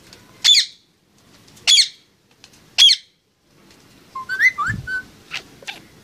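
Pet parakeet calling: three sharp, loud screeches about a second apart, then a quick chattering run of gliding notes and two short chirps near the end. A low bump comes partway through the chattering.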